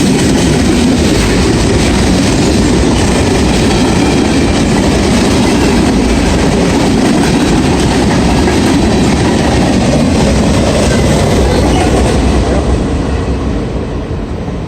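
Freight cars of a Norfolk Southern mixed manifest train rolling past on the rails: steady wheel-and-car noise that fades somewhat near the end.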